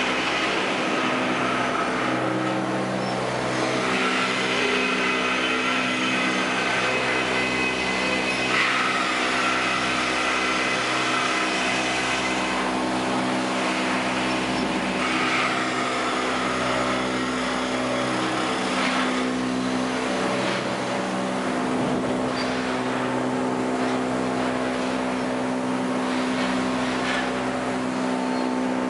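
Sawmill machinery running: a steady engine drone with a high whine that comes and goes every few seconds.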